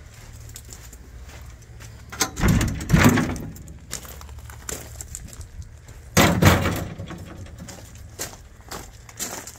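Metal-framed wooden side gate unlatched and pushed open, rattling, about two seconds in, then banging shut about six seconds in, with light footsteps between.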